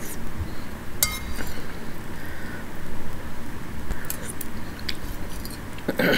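Metal spoon clinking against a bowl of pozole while eating: one clear clink with a short ring about a second in, then a few lighter clinks later.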